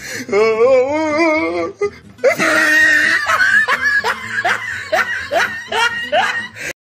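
Laughter over music: a voice wavering up and down in pitch, then a run of repeated rising laughs, cutting off suddenly near the end.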